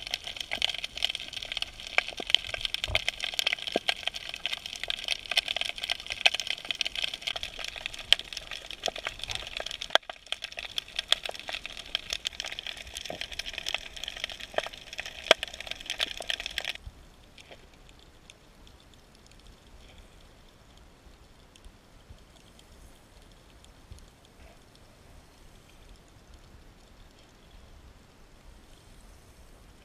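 Underwater crackle of many sharp clicks, picked up by a camera held under the water over a kelp and seagrass reef. About halfway through it cuts off suddenly, leaving only a faint hiss.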